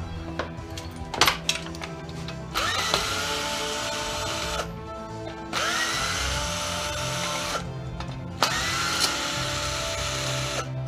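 Cordless drill backing screws out of a TV projector's metal housing, running in three bursts of about two seconds each, each starting with a rising whine that then holds steady. A couple of sharp knocks sound about a second in.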